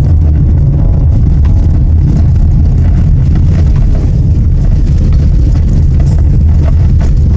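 Car driving over a bumpy, potholed road, heard from inside the cabin: a steady low rumble of road and tyre noise with loose rattling and knocking from the bumps.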